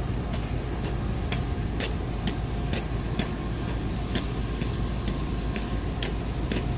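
Footsteps on a steel tanker deck, about two steps a second, over a steady low rumble.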